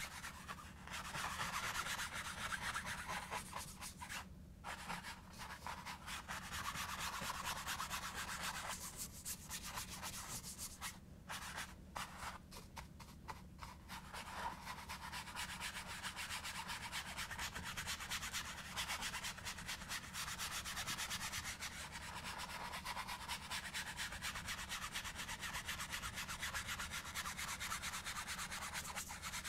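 A 2-inch paintbrush scrubbing back and forth over an oil-painted canvas in quick, continuous strokes, blending the background colours. The scratchy rubbing stops briefly a few times, about four seconds in and again around the middle.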